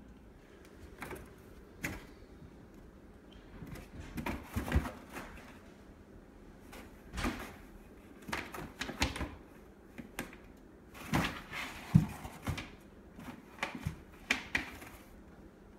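Cardboard wine-bottle carton with cardboard dividers rustling, scraping and knocking as a Bengal cat paws and pushes its head into the compartments. Irregular short knocks and scrapes come in clusters, the loudest about five and twelve seconds in.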